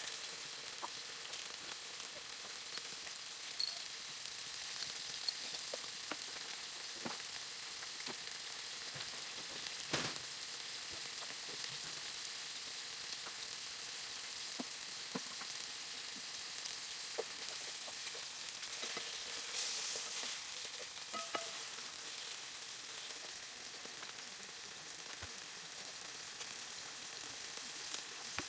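Food frying in hot oil in a pan: a steady sizzle with scattered light clicks and taps, the sharpest about ten seconds in.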